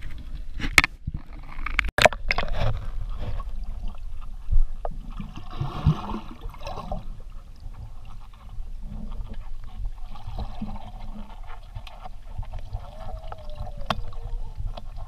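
Water sloshing, splashing and gurgling as someone swims, over a steady deep rumble, with a few sharp knocks in the first two seconds.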